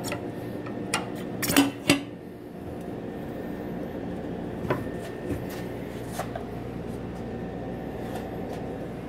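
Steel tire bar clinking and scraping against the alloy rim and the tire changer's mount head while the bead is pried over the rim: a cluster of sharp metal clanks in the first two seconds, then a few scattered clicks over a low steady hum.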